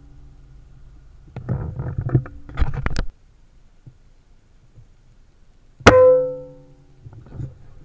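A single air rifle shot about six seconds in: a sharp crack followed by a ringing tone that dies away over about a second. Before it, irregular knocking and rustling noise that cuts off abruptly about three seconds in.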